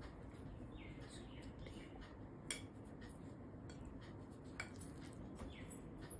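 Faint clinks and light scraping of a metal spoon against an appe pan and a batter bowl as batter is spooned in: a few sharp taps, the sharpest about two and a half seconds in.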